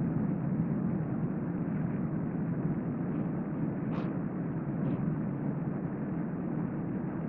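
Steady, even room noise in a hotel bedroom, sped up fourfold, with no breathing heard because the sleeper is partway through a 25-second sleep apnea. Two brief faint clicks come about four and five seconds in.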